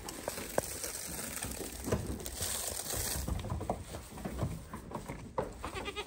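Goats eating crushed corn at feed: scattered crunching clicks and knocks over a low, noisy background.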